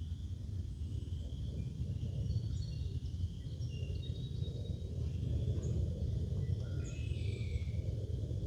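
Small songbirds chirping and calling in short scattered notes among the trees, over a steady low rumble.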